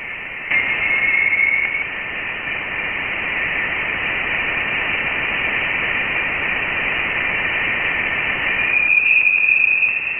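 Saturn's radio emissions rendered as sound: a steady, eerie static hiss. A thin whistling tone rises out of it about half a second in and lasts just over a second. A brighter tone swells near the end.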